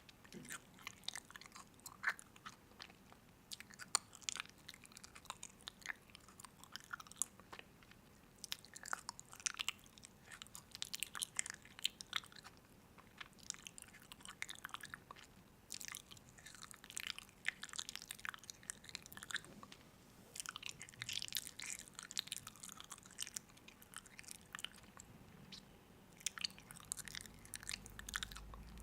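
A person chewing and biting crunchy food, with many irregular, crisp crackling clicks.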